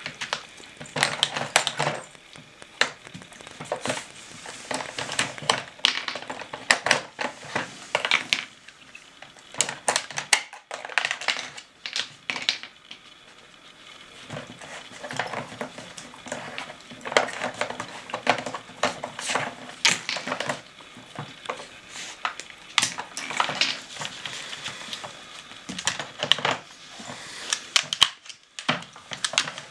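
A dog working a plastic Nina Ottosson treat puzzle with its nose and paws: irregular clicking and clattering of the plastic covers and bone-shaped plugs as they are shoved and knocked out onto a wooden floor. The clatter thins out for a few seconds around the middle.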